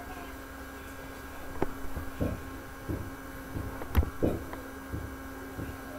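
Steady low hum with a few scattered soft knocks and clicks.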